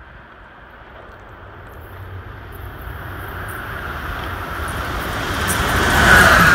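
An Amtrak ACS-64 electric locomotive leading a passenger train approaches at speed. The rush of its wheels on the rails grows steadily louder and peaks as the locomotive passes close by near the end. As it goes by, a high whine drops in pitch.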